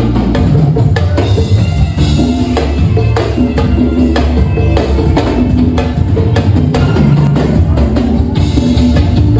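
A live band playing at a soundcheck, with a drum kit keeping a steady beat over a moving bass line.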